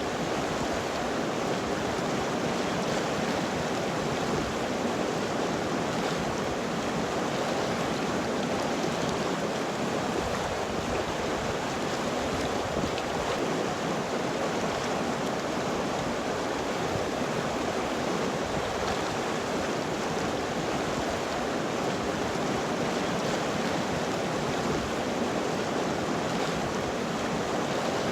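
River water flowing over rocks, a steady, even rush.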